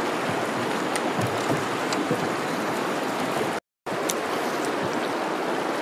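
Steady rush of fast-flowing, choppy floodwater around a small boat, with no engine running. It drops out completely for a moment about two-thirds of the way through, then carries on the same.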